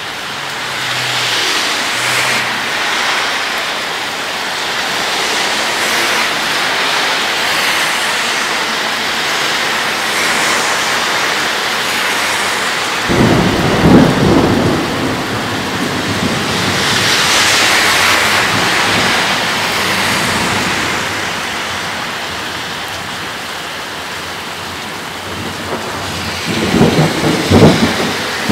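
Steady rain falling during a thunderstorm, with two loud claps of thunder, one about halfway through and another near the end.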